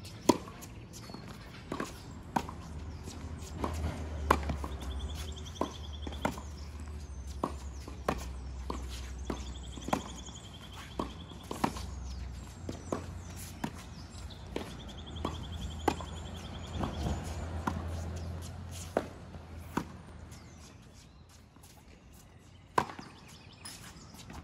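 Tennis rally on a hard court: a tennis ball struck by rackets and bouncing, sharp single pops one or two a second. The pops stop a little before the end, with one more hit after a pause, over a low rumble.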